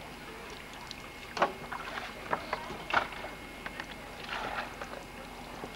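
Shallow water sloshing around a stand-up jet ski as it is handled, with a few sharp knocks against its hull and a brief swell of splashing near the end. No engine is running.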